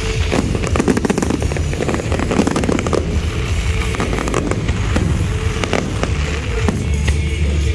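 Aerial fireworks in a dense barrage: many quick overlapping bangs and crackles over a continuous low rumble, thickest in the first few seconds.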